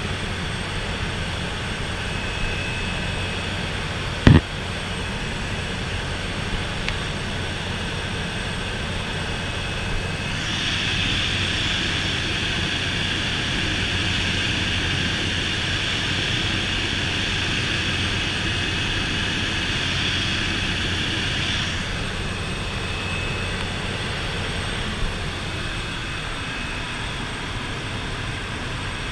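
Inside the cabin of a de Havilland DHC-3 Otter turboprop in flight: the engine and propeller drone steadily. There is a single sharp click about four seconds in, and from about ten to twenty-two seconds in a higher hiss sits over the drone before dropping away.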